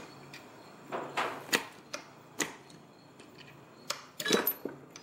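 Metal parts of a Bendix hydroboost brake booster clicking and knocking against each other as it is pulled apart by hand: a few sharp clicks about a second in, one more near the middle, and a short cluster near the end.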